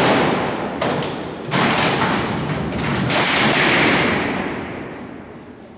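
A row of heavy steel-barred sliding cell doors of the Alcatraz cellhouse rolling and clanging into place together as they are locked. Several metal clanks and a rolling rumble lead to a loud slam about three seconds in, which echoes through the cellblock and slowly fades.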